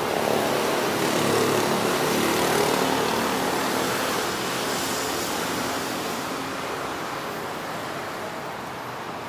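Street traffic: a passing motor vehicle's engine, swelling over the first couple of seconds and then slowly fading.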